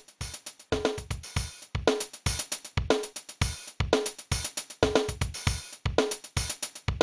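Korg Beatboy drum machine playing a steady programmed beat of kick, snare and hi-hat, about two beats a second. It runs partly through a Danelectro distortion pedal and a Zoom MultiStomp reverb, and the kick has a little bass to it. The volume comes up in the first second.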